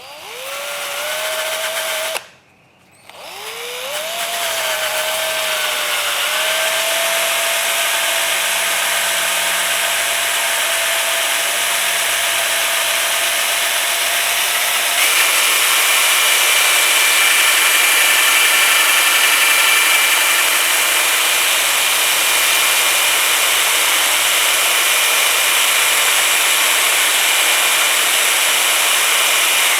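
Electric drill spinning a 3-inch sanding disc against aluminum. The motor spins up, stops briefly about two seconds in, then restarts and runs steadily. About halfway through, a higher-pitched whine takes over.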